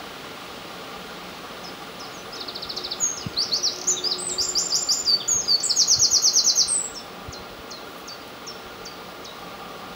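Eurasian wren singing one loud song of about four and a half seconds, starting about two seconds in: a fast run of high trills and rattles. A few faint single high notes follow it.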